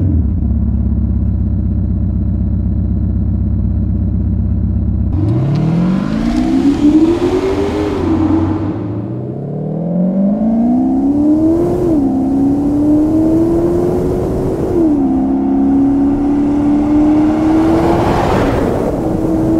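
Bentley Bentayga's V8 diesel through a QuickSilver Sound Architect sports exhaust, idling steadily after start-up, then accelerating with the note rising in pitch and dropping at each of three upshifts before climbing again near the end.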